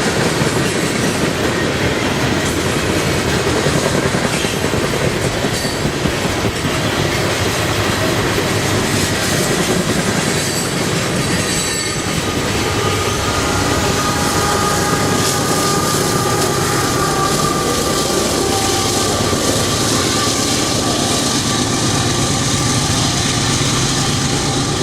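Coal train's cars rolling past on steel rail: a steady loud rumble of wheels with clickety-clack over the rail joints. From about halfway a thin, wavering wheel squeal rises over it.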